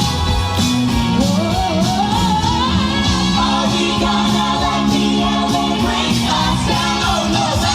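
Music with a singing voice whose line slides upward in pitch from about one to three seconds in, over held accompanying notes.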